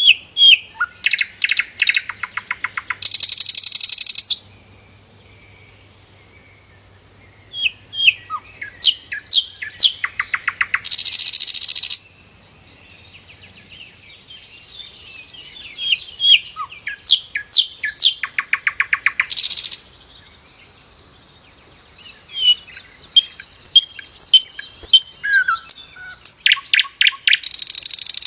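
A sikatan londo flycatcher singing four song phrases, each a run of quick high chirps and sweeps that ends in a rapid, buzzy trill, with short pauses between phrases.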